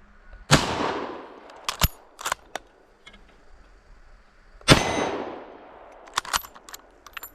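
Two 8mm Mauser rifle shots about four seconds apart, each with a long rolling echo. Each is followed a second or so later by a few short, sharp metallic clanks.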